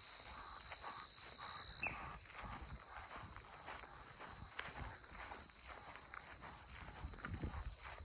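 Crickets trilling in a steady, high, unbroken chorus, with crunching footsteps. A short chirp comes about two seconds in.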